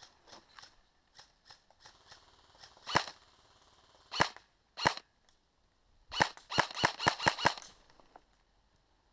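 Airsoft guns firing: three single shots a second or so apart, then a rapid string of about eight shots.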